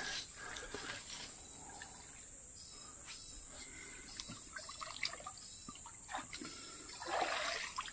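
Faint riverside ambience: water trickling quietly, with a few short bird chirps and small clicks, and a brief swell of rustling noise near the end.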